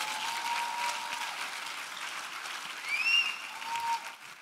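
Church congregation applauding steadily, with a brief high sound rising in pitch from somewhere in the crowd about three seconds in.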